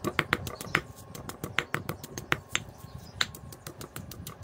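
Stone pestle pounding in a stone mortar: sharp, uneven knocks, several a second, as dried chilli and shrimp paste are pounded into a chilli paste.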